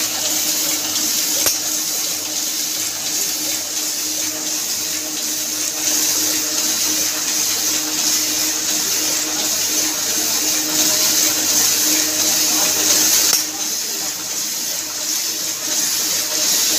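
Mini offset printing press running and feeding paper: a steady hiss over a low, even hum, the hiss dropping slightly about thirteen seconds in.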